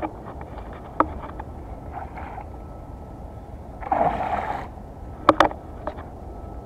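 A hooked California halibut splashing at the water's surface for about half a second, about four seconds in, over a low steady rumble, with a few sharp clicks before and after.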